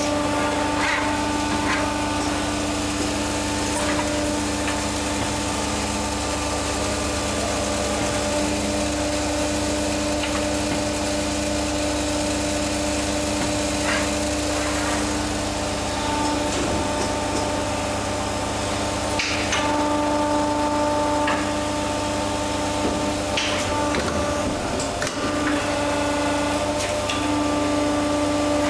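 Vertical plastic injection moulding machine running: a steady hum with a few tones that come and go, and scattered short clicks and knocks as it cycles.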